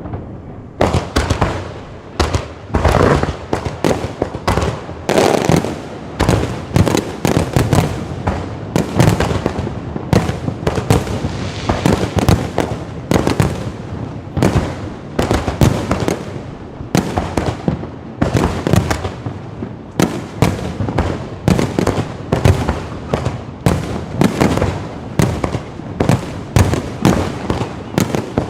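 Low-altitude fireworks firing in a dense, rapid barrage: many sharp bangs and crackles a second, going on without a pause from about a second in.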